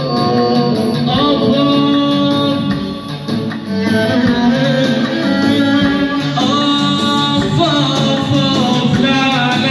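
A man singing an Arabic folk song into a microphone over an electronic keyboard accompaniment with a steady drum rhythm.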